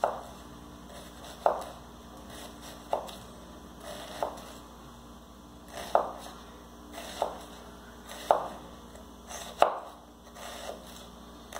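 Kitchen knife chopping an onion on a wooden cutting board: about nine separate chops, roughly one every second and a half.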